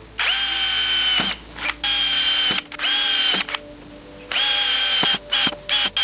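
Electric drill boring a row of small 5 mm holes through a plastic pipe, its motor whining in repeated runs that each rise in pitch as they start. There are four runs of about a second each, then several quick short bursts near the end.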